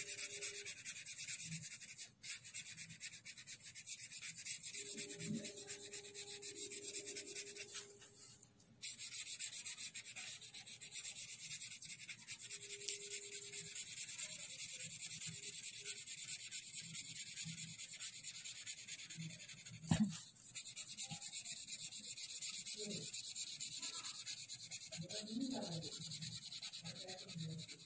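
Felt-tip sketch pen rubbing across paper in quick, even strokes while colouring in a shape, with two brief pauses.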